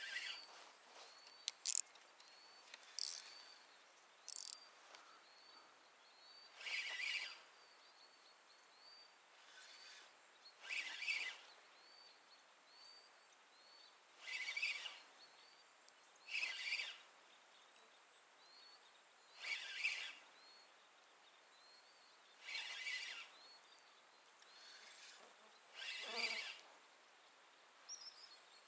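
Spinning reel cranked in short bursts of about a second, every three to four seconds: the stepped retrieve of jig fishing. A few sharp clicks come in the first few seconds.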